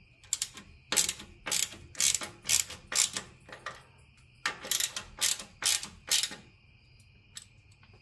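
Socket ratchet wrench clicking in quick strokes as a suspension bolt is turned, about two strokes a second, with a short pause about four seconds in and stopping after about six and a half seconds.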